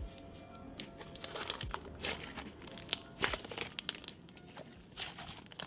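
Soft cloud cream slime being squished and stretched by hand, making irregular crackles and clicks, over quiet background music.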